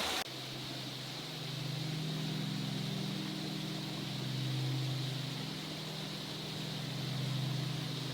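A steady low engine drone that slowly swells and fades twice.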